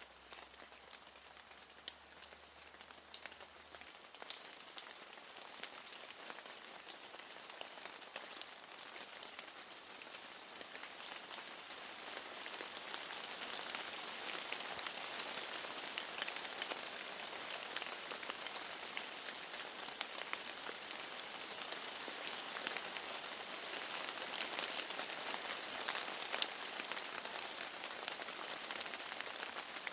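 Rain falling steadily, an even hiss dense with fine drop ticks. It grows louder over the first dozen seconds or so and stays up from there.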